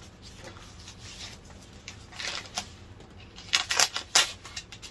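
A knife slitting open a USPS Priority Mail envelope: a few quick, sharp cutting strokes near the end, after softer rustling of the envelope being handled.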